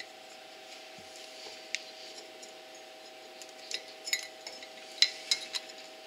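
Light metal clinks and small scrapes as an exhaust extension with a new gasket is worked onto the cylinder's exhaust studs. The sharpest clinks come in a cluster from about three and a half to five and a half seconds in. A steady faint hum runs underneath.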